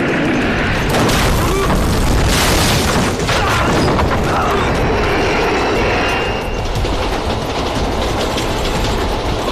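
Film-style battle sound effects: explosions amid a continuous, dense din of blasts, the biggest about two and a half seconds in.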